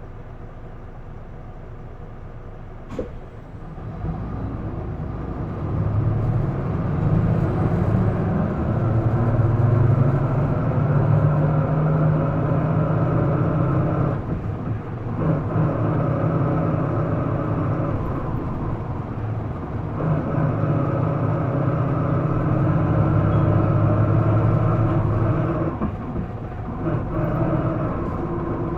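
Isuzu Erga (PDG-LV234L2) city bus diesel engine heard from inside the cabin: idling, then revving up hard as the bus pulls away and accelerates, run to high revs in normal mode. The engine note drops briefly a few times along the way, as at gear changes.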